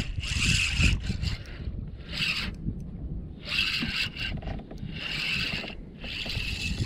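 Rhythmic rasping rubs, about one every second and a half, over a steady low rumble.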